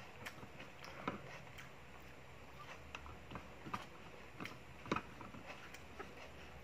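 Eating by hand: faint, irregular small clicks and smacks of chewing and of fingers picking food off a plate, with a slightly louder pair about five seconds in.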